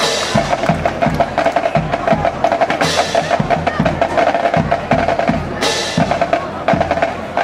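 Marching band drumline playing a cadence: rapid snare strokes over steady bass drum hits, with cymbal crashes at the start, about three seconds in and again near six seconds.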